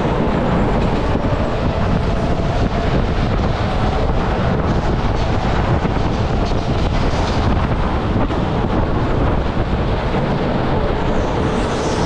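Go-kart driving at speed around an indoor track, heard from a camera on the kart: a loud, steady rumble and rattle of the kart rolling over the floor.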